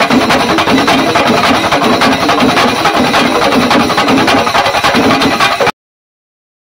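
Chenda melam: several chenda drums beaten rapidly with sticks together with clashing ilathalam hand cymbals, loud and dense. It cuts off abruptly near the end.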